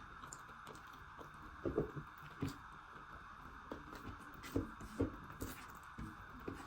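A person eating: soft, scattered mouth clicks and smacks of chewing, over a steady faint hiss.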